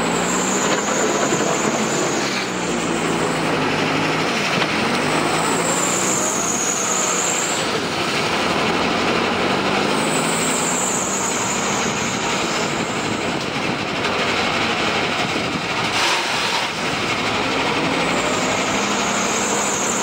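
JCB backhoe loader's diesel engine running under load and revving up and down as the front bucket works sand and gravel. A high whine swells and fades several times over it.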